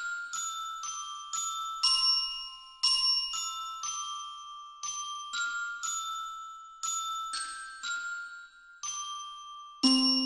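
Background music: a melody of struck mallet-percussion notes, about two a second, each ringing and fading. Lower notes join in near the end.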